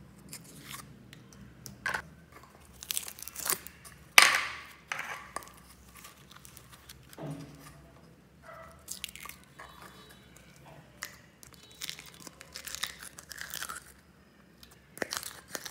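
Slime being squeezed out of plastic tubs and plopped into a bowl of mixed slime: irregular squelches, crackles and the crinkle of handled plastic tubs, with one loud sudden sound about four seconds in. Near the end a bead-filled slime is poured from a clear cup and crackles.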